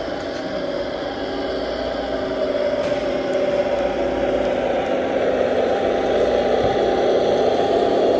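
Radio-controlled model semi truck's sound module playing a truck engine running, growing steadily louder as the truck drives closer.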